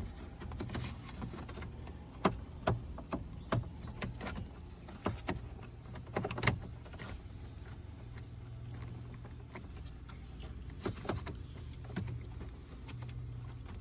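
Scattered sharp plastic clicks and knocks from handling the turn signal switch and its wiring plugs in the steering column, over a steady low hum. The clicks come thickest in the first half, then thin out.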